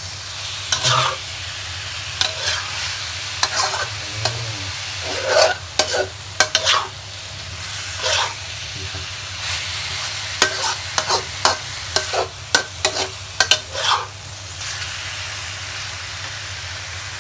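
Chicken, ginger and shiitake mushrooms sizzling in hot oil in a wok while a spatula stirs them, with frequent sharp scrapes and clacks of the spatula against the pan. The stirring stops at about 14 seconds and only an even sizzle is left. This is a quick stir-fry to bring out the aroma and sear the chicken's outside, not to cook it through.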